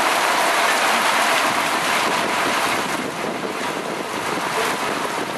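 Heavy thunderstorm downpour: a steady, dense hiss of rain, easing slightly about three seconds in.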